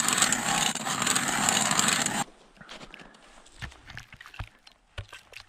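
Hand-cranked ice auger's blades cutting into lake ice: a steady, loud scraping grind that stops suddenly about two seconds in. Faint scattered knocks and clicks follow.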